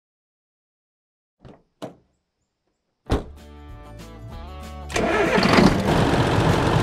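Cartoon tractor engine sound effect starting up: two short sounds after a silence, then the engine catches sharply about three seconds in and runs, becoming much louder and steady about five seconds in, with music.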